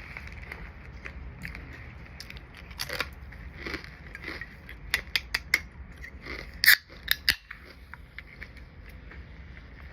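Crunchy Korean seaweed crackers being bitten and chewed close to the microphone: scattered sharp crunches, a quick run of them about five seconds in, and the loudest crunches a little before and after seven seconds.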